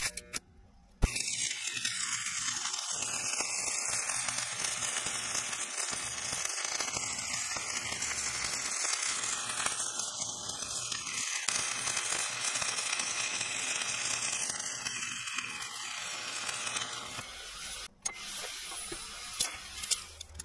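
Stick welder's arc, struck with a sharp click about a second in, crackling and sizzling steadily as a bead is laid to weld a steel grouser bar onto a crawler track pad. The arc breaks off near 18 seconds, followed by a few light metal clicks.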